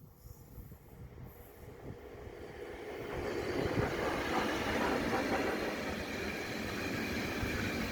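Škoda 79 E1 electric locomotive passing on rails: a rumble of wheels and running gear that grows louder over the first few seconds as it approaches, then holds steady.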